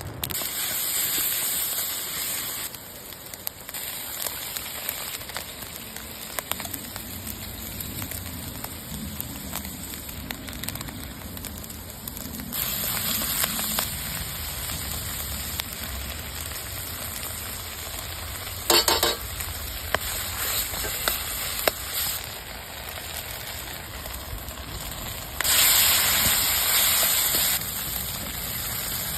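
Food sizzling in a frying pan over a campfire. The sizzle steps up and down in level a few times, and there is a brief ringing clink about two-thirds of the way through.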